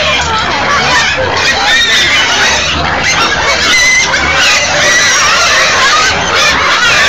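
A crowd of domestic pigs squealing loudly and without a break, many overlapping high-pitched squeals: pigs clamouring to be fed at the trough.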